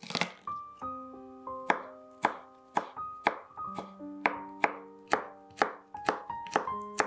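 Chef's knife chopping garlic on a wooden cutting board: sharp knocks about two a second, coming a little quicker toward the end, over background piano music.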